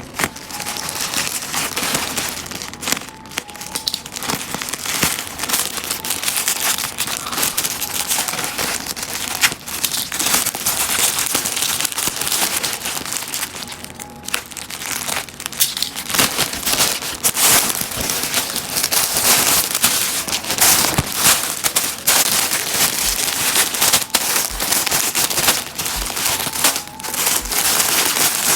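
Plastic packaging being handled and crinkled while a parcel is unwrapped: dense crinkling and rustling with many sharp crackles.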